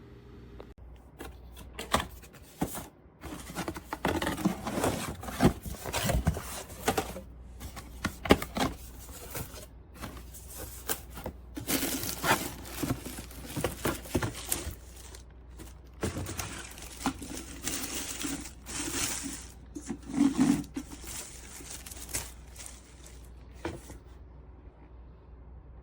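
Irregular handling noises: clicks, knocks, scrapes and crinkling of objects being moved about, broken by several abrupt cuts.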